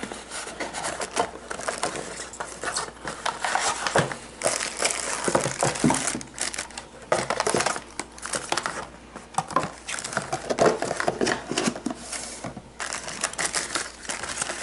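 Packaging being unwrapped and handled: a plastic bag crinkling and cardboard and paper rustling in irregular bursts, with a few sharp clicks.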